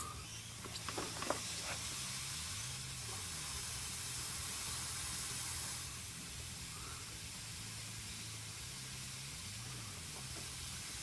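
Compressed air hissing steadily from an air-compressor blow gun held on a small hole in a sports-drink bottle, pressurising it at about 5 psi to push ATF through a transmission oil cooler line for a flush. A few light handling knocks come in the first second or so, and the hiss eases off slightly about six seconds in.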